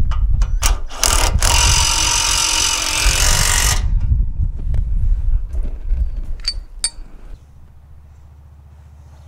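Power tool running in several bursts while hardware is fastened on a lawn tractor's mower deck, with a loud hiss in the middle stretch. It stops near the end, leaving a low steady hum.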